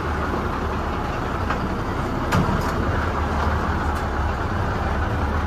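Dump truck's diesel engine running steadily under load as the truck drives onto a barge, with a few sharp knocks.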